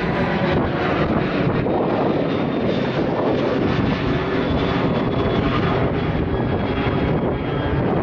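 Jet airliner climbing out low overhead just after take-off, its engines giving a loud, steady noise.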